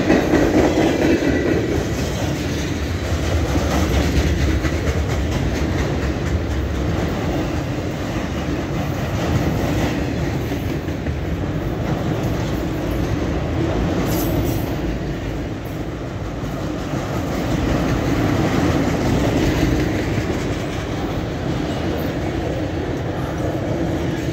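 Freight train cars (tank cars, then autorack cars) rolling past at speed: a steady rumble of steel wheels on rail with a continual clickety-clack over the rail joints.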